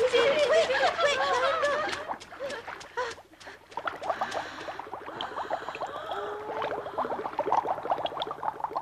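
A group of high cartoon children's voices laughing and giggling together, loudest in the first two seconds, then quieter giggling.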